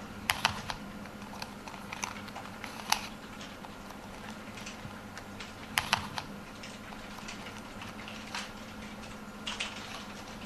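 Computer keyboard keys being pressed: irregular single clicks and short clusters of clicks, over a faint steady hum.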